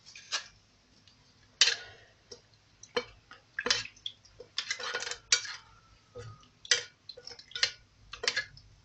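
A metal spoon and a metal bowl clinking and scraping, with some liquid sounds, as sheets of roqaq dough are soaked in the bowl's broth, milk and butter. The sounds are irregular, about a dozen clinks and short scrapes, the loudest about a second and a half in.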